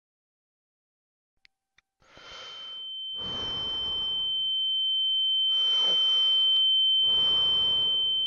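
Silence, then a single steady high-pitched electronic beep tone fades in about two seconds in and swells, held without a break, while four heavy, wheezing breaths are drawn under it.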